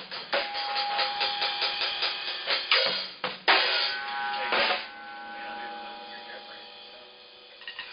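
Acoustic drum kit played with sticks: a quick run of drum and cymbal hits ending in two loud crashes, about three and a half and four and a half seconds in. The cymbals then ring out and slowly fade.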